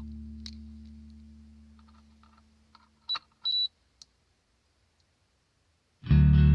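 Background music fading out, then a few faint clicks and two short high-pitched electronic beeps, the second a little longer than the first; music starts again near the end.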